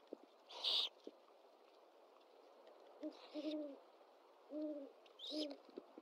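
Great horned owl hooting: a short series of low, soft hoots between about 3 and 5.5 seconds in. A brief raspy hiss, louder than the hoots, comes about half a second in.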